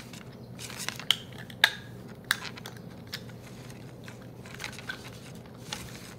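Light handling noise: scattered clicks and rustling, with three sharp clicks between about one and two and a half seconds in.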